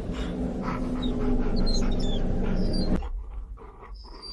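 A dog's sounds: a dense, steady low vocal sound that cuts off about three seconds in, followed by quieter panting.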